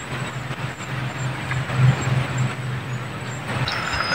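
An engine running with a steady low hum, which cuts off near the end.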